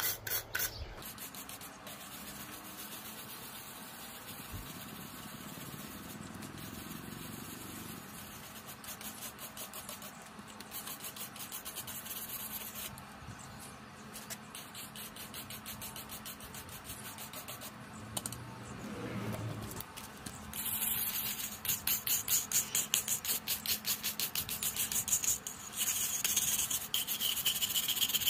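Stiff hand scrub brush scraping moss off a rough, pebbly render wall in rapid back-and-forth strokes. The scrubbing stops briefly at the start for a long quieter stretch, then resumes and is louder for the last third.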